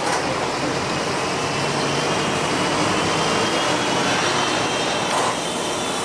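Steady vehicle noise: an even, loud wash of sound with no clear engine note and no sharp knocks.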